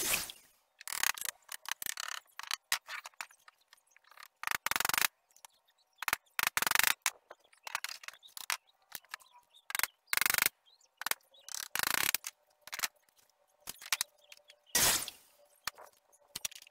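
Intermittent scraping and knocking of wooden boards and hand tools being handled on a workbench, in short irregular bursts.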